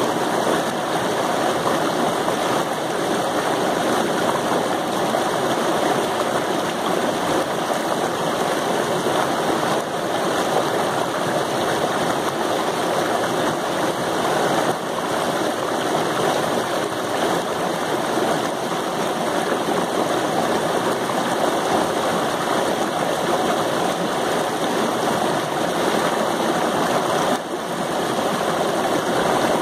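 Waterfall: water rushing steadily over a river cascade, an even, unbroken noise.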